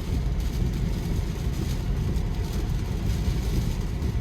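Steady low rumble of a Tesla driving on a wet road in a rainstorm, heard inside the cabin: tyre and road noise with wind and rain.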